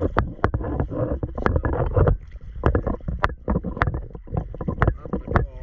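Underwater sound at a boat hull: many sharp, irregular clicks, several a second, over a low watery rumble with some bubbling.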